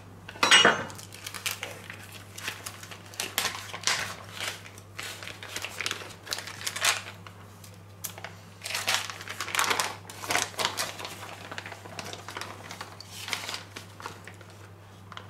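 Plastic vacuum-seal bag crinkling and rustling in the hands as it is opened and handled, in irregular bursts, loudest just after the start.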